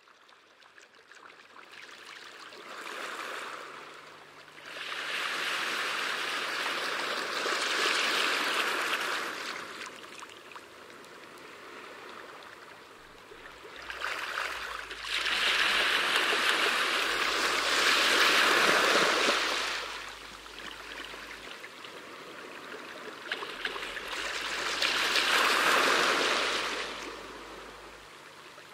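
Rushing water in long surges that swell and fade, about three or four times.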